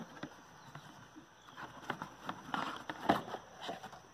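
Cardboard box of a new hydraulic filter being torn open and handled by a gloved hand: irregular rustles, scrapes and crackles of the flaps, busiest in the second half.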